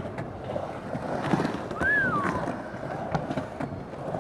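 Skateboard wheels rolling around a skatepark bowl: a steady rumble with scattered clicks and knocks, and a short rising-then-falling squeak about two seconds in. Wind buffets the microphone.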